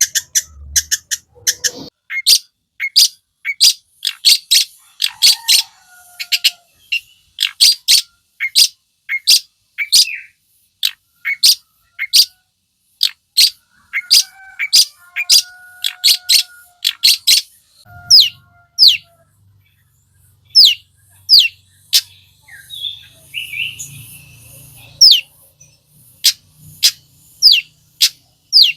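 Long-tailed shrike (cendet) singing hard: a long series of sharp, high notes sweeping downward, repeated about two a second, broken by a few short, level whistles near the middle.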